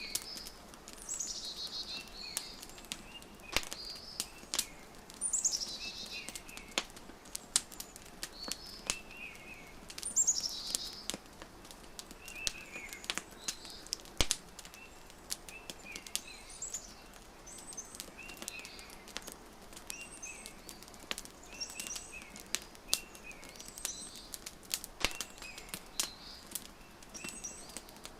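Wood fire crackling with irregular sharp pops, mixed with birds chirping: short chirps repeated throughout and a few longer falling calls.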